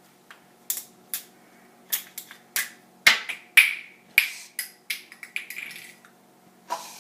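A run of sharp, irregular clicks and knocks from condiment bottles and a cup being handled on a counter, a few with a brief ring about three to four seconds in.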